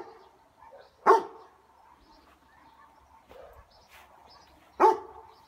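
A dog barking: two single, sharp barks, one about a second in and one near the end.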